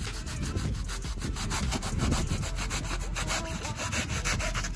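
A blade sawing rapidly back and forth through hardened expanding spray foam, cutting it off a truck bed.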